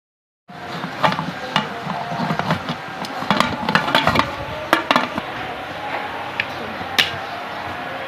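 Metal utensil clinking and scraping against a cooking pot. It starts suddenly, with a dense run of sharp knocks for about five seconds, then only a few.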